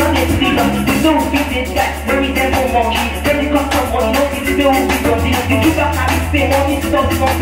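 Live band of Yamaha keyboard, guitar and drum kit playing a steady groove, with a woman's voice through a handheld microphone over it.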